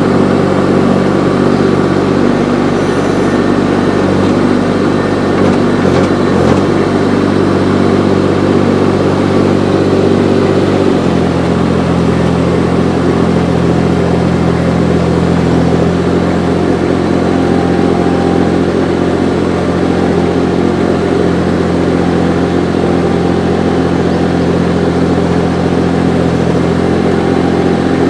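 Engine of a Baumalight TRL 630D compact track loader running steadily under load, its pitch changing about 11 seconds in and again around 16 seconds.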